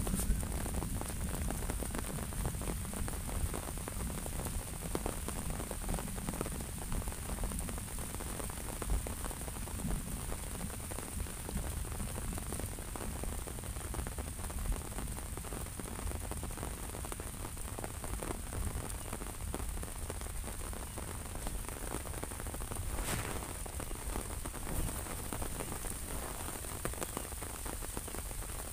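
Steady rain pattering on an open umbrella held overhead, with a low rumble underneath.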